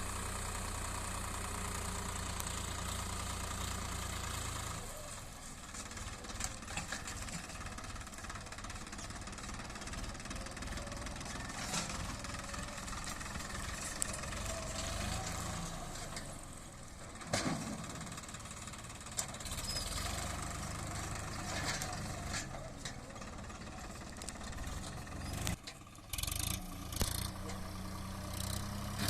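Swaraj 963 FE tractor's diesel engine running steadily, with scattered sharp knocks and clatter.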